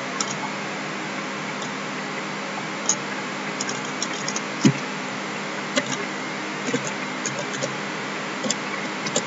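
Scattered keystrokes and clicks from a computer keyboard and mouse, a dozen or so spread unevenly, over a steady background hiss and hum.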